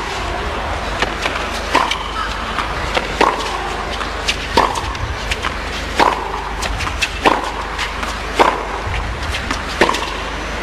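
Tennis ball struck back and forth by two players' racquets in a baseline rally: a sharp hit roughly every second and a half, about seven in all, with fainter clicks between.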